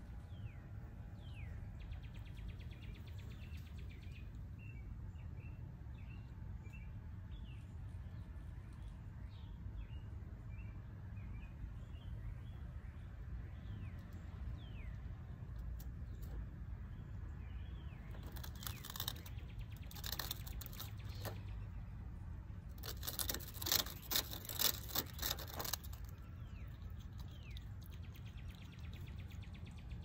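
Virginia opossum chewing its food, with two clusters of rapid, crisp smacking clicks about two-thirds of the way through, the loudest sound. Small birds chirp throughout over a steady low outdoor rumble.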